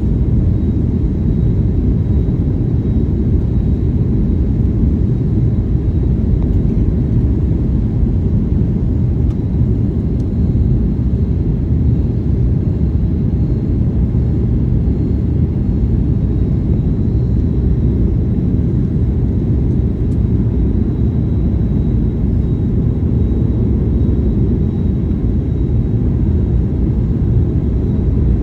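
Boeing 737 cabin noise heard from inside the cabin: a steady low rumble of engines and airflow, with a faint steady high whine.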